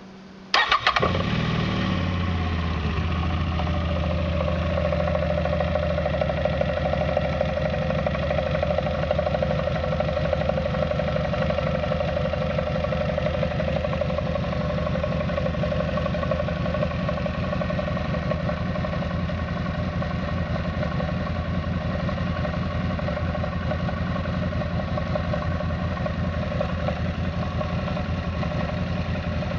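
CFMoto X8 ATV's 800cc V-twin engine starting about half a second in, then idling steadily with a dense, even rhythm. The owner posts it for a knock in the engine.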